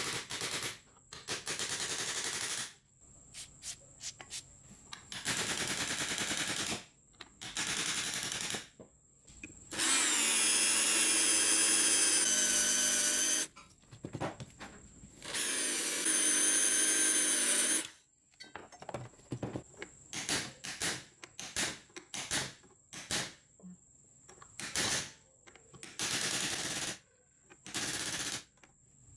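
A power tool's motor running in several bursts, the two longest about three seconds each near the middle with a steady whine, and rapid sharp metal clicks and taps in between.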